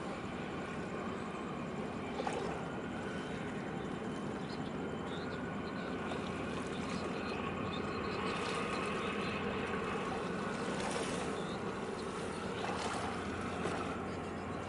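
Steady low rumble of ship and harbour-tug engines, with a faint knock about two seconds in and again near the end.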